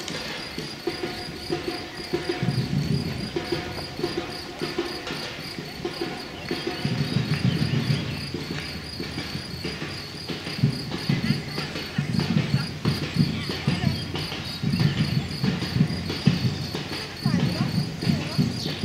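Footsteps of many runners on an asphalt path, an irregular patter of soft shoe strikes, with a fast, steady high-pitched ticking behind it and a low rumble that comes and goes.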